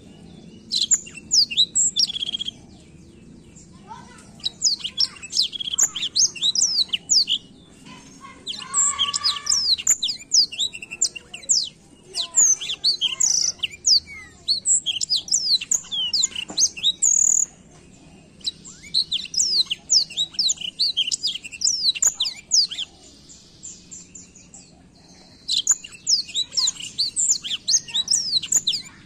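Black-throated canary (blackthroat) singing in full voice: repeated bursts of fast, high twittering and trills, each a few seconds long, with short pauses between them.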